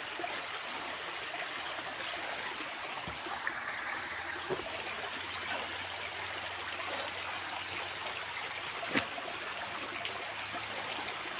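Creek water running steadily, a constant rushing hiss, with a single sharp click about nine seconds in.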